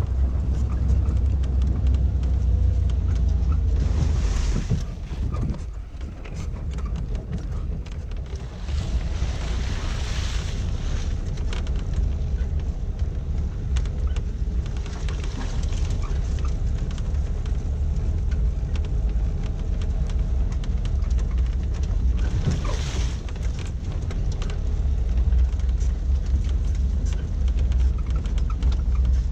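1988 Suzuki SJ413 Samurai's 1.3-litre four-cylinder engine running as the vehicle drives along a rough track, with a steady low rumble and scattered knocks and rattles. The engine note drops for a few seconds about five seconds in, then picks up again.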